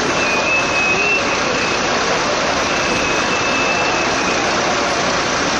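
Fire truck engine running steadily, as a continuous mechanical noise, likely the aerial ladder truck keeping its engine up to power the ladder. A faint high whistle comes and goes in the first few seconds.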